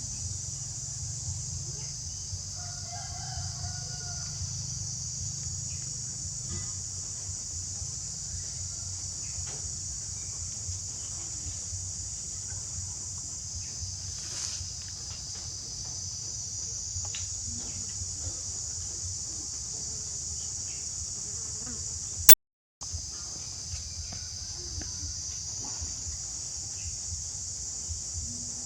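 Insects chirring steadily in a high band, with a faint rooster crow about three seconds in. A sharp click and a brief dropout come about three-quarters of the way through.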